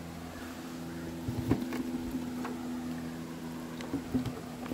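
A motor's steady low hum, with a few light footsteps on a dry dirt path strewn with leaves.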